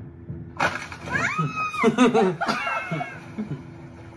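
A sudden crash, then a person's long high yell and more shouting from the people in a fail clip.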